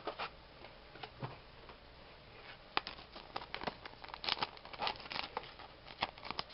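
Trading cards being handled and shuffled: quick soft rustles and light clicks of card stock, a few scattered at first, then a busy run of them in the second half.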